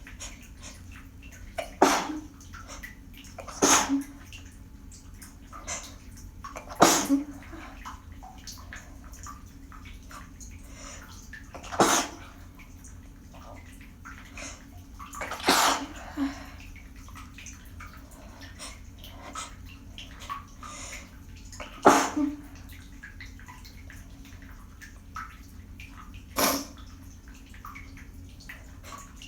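A person sneezing about seven times, each sneeze sharp and sudden and several seconds apart, some with a short second burst right after. A steady low background noise runs underneath.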